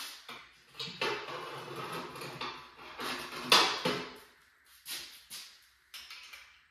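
Parts of a hive lift being handled during disassembly: scraping and shuffling, then a sharp knock about halfway through, followed by a few lighter clunks.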